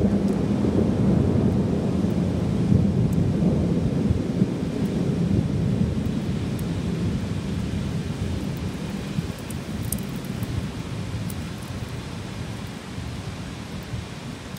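A thunderclap breaking just at the start and rolling on as a long, low rumble that slowly fades, over steady heavy rain.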